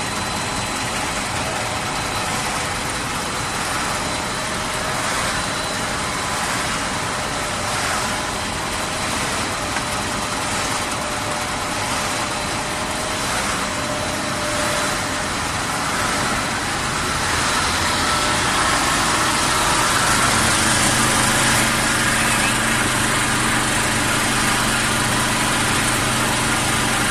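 Snack pellet extrusion line machinery running with a steady mechanical noise and faint steady hums. About 18 seconds in it gets louder and a steady low hum comes in.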